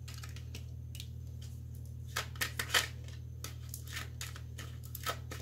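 A tarot deck being shuffled by hand: a run of irregular papery snaps and flicks of the cards, loudest in a cluster a couple of seconds in, over a steady low hum.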